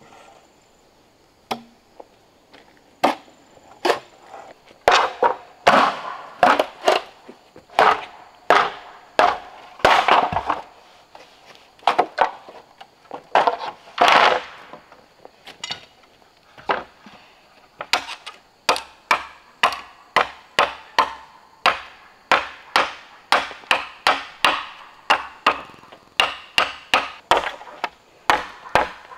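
Chopping wood: a blade striking timber over and over, a few scattered blows at first, then a steady run of strokes. In the second half the strokes come quick and even, about two to three a second.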